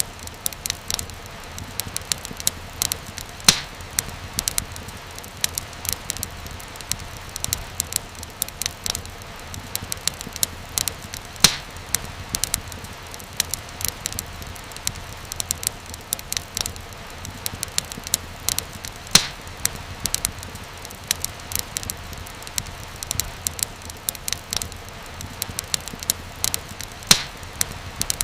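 Wood fire crackling in a fireplace: dense small crackles over a low steady hiss, with a louder pop about every eight seconds.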